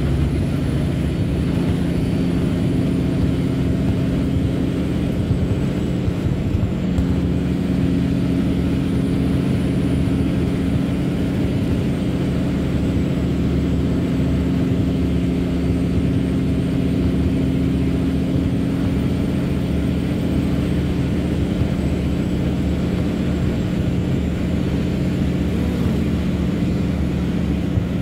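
Log truck's diesel engine running steadily under way, a constant even drone with no change in pitch or load.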